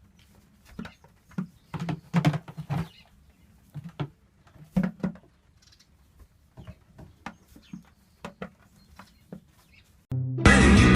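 Irregular light taps and clicks, scattered and uneven in spacing. About ten seconds in, loud rock music starts suddenly.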